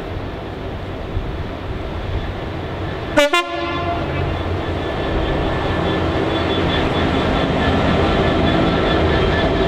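GBRf Class 66 diesel locomotive, with its two-stroke V12 engine, pulling away under power at the head of a rake of coaches, its rumble growing louder as it passes close by. About three seconds in there is a very short, sharp horn toot.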